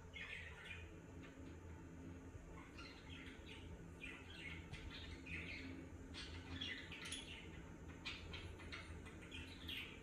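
Cockatiel chirping softly in short groups of quick chirps, a group every second or two, over a faint steady low hum.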